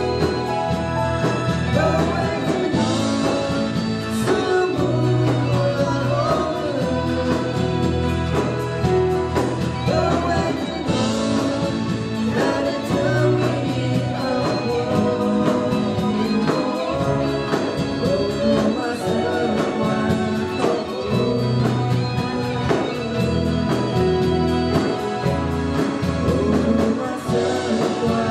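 A woman sings a song into a handheld microphone over a PA. She is accompanied by an electronic keyboard with a steady beat and occasional cymbal crashes.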